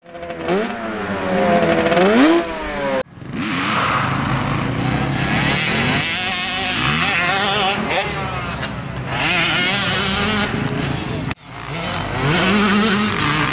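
Dirt bike engines revving hard and easing off, their pitch rising and falling as the bikes ride a muddy off-road track. The sound breaks off abruptly about three seconds in and again near the end.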